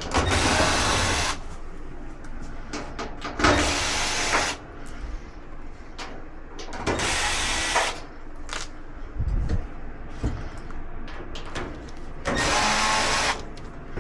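Power drill/driver run in four short bursts of about a second each, backing out screws from a dryer's cabinet panels, with small clicks and handling noises between the runs.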